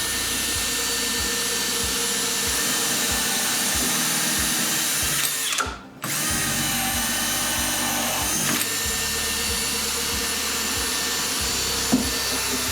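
Electric drill running steadily, boring holes through drawer fronts for knob or pull screws. It stops briefly just before halfway, starts again, and a sharp click sounds near the end.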